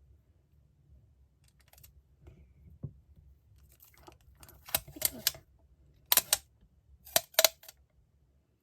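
Handling of masking tape rolls and their packaging: faint rustles, then sharp clicks and taps in quick clusters, three together about halfway through and two pairs after.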